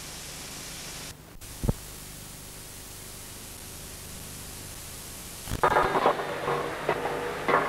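Steady hiss of videotape playback noise, with one sharp click a little under two seconds in. About two-thirds of the way through, a louder run of irregular knocks and clatter with some tones breaks in.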